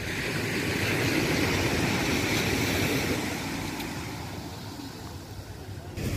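Small waves washing onto a sandy beach, a steady rushing hiss that swells over the first couple of seconds and then slowly fades.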